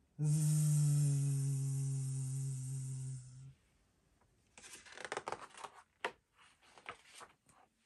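A woman's voice holds one low, steady hummed note for about three seconds. About a second later comes the crackle and rustle of a picture book's paper pages being turned.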